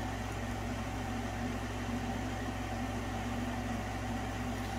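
Steady low hum with a faint even hiss: room tone, with no distinct event.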